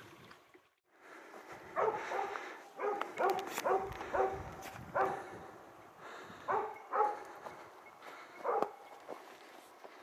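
Hunting dog barking in short uneven bursts, about a dozen barks. The dog is baying a wild boar that it has found and is holding at bay.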